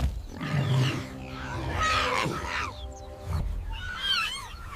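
Wild animal calls: low rumbling sounds, then a series of short, high calls that bend up and down in pitch near the end, over background music with long held tones.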